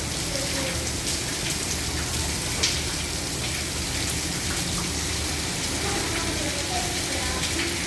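Heavy downpour of rain on a roof, a steady dense hiss with scattered sharp drop ticks, one louder tick a little before the middle.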